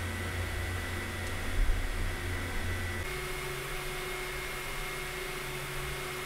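Elegoo Neptune 4 3D printer running mid-print: a steady whir of its cooling fans with faint steady motor tones. The tones shift about three seconds in, and there is a brief low bump about one and a half seconds in.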